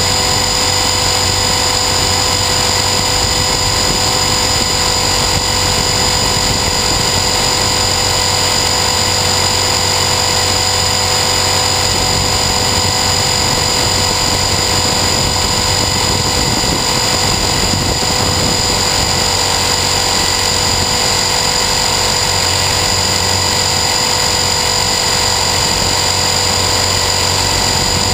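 Align T-Rex 450 Sport electric RC helicopter in flight, heard from a GoPro camera mounted on it: a steady whine of motor and gears at several fixed pitches over a constant rush of rotor noise.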